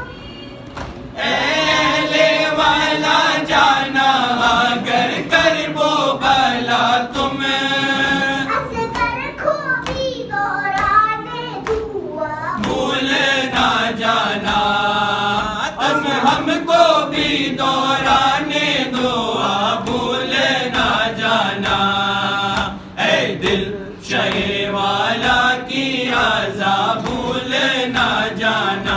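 Unaccompanied voices chanting a slow devotional Urdu lament, the melody held in long phrases with brief breaks between lines, about 12 and 23 seconds in.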